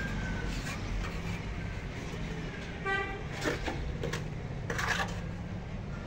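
A steady low rumble, with one short horn toot about three seconds in, followed by a few sharp knocks.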